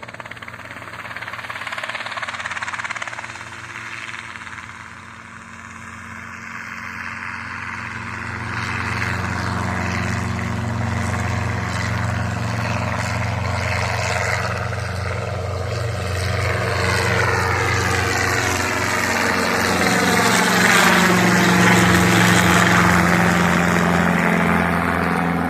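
Helicopter lifting off and flying off, its engine and rotor running steadily and growing louder about a third of the way in, with a sweeping, phasing whoosh as it moves, loudest near the end.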